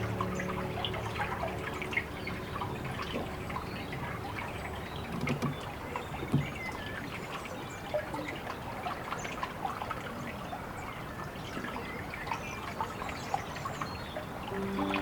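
Water trickling and dribbling, an even running-water sound dotted with many small drips and splashes.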